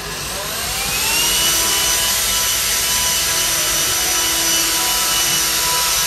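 Robot vacuum cleaner's motor starting up: a whine that rises in pitch over about the first second, then runs steadily with an even rushing hiss.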